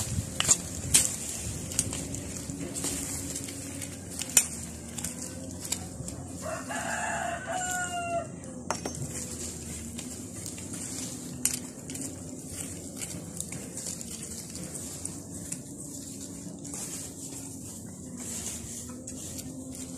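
A rooster crows once, about seven seconds in, for around two seconds. Throughout, hand weeding rustles and scrapes through soil and dry plant debris, with scattered sharp clicks.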